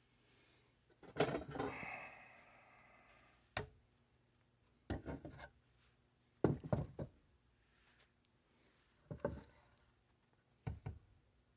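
Handling of a bakelite-cased Lionel ZW train transformer: a scraping clatter about a second in that rings on briefly, then a sharp knock and several short clunks and rubs as it is moved about on a surface.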